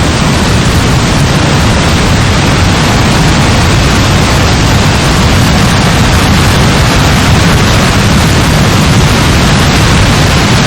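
Heavy rain falling steadily, a dense even hiss with a deep rumble underneath.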